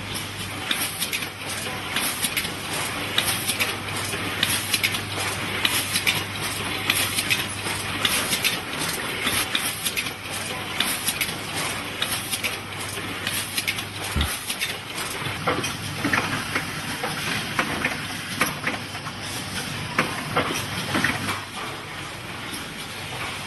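Automatic packaging machinery running, with a steady stream of rattling and clicking and a low hum underneath that stops and comes back.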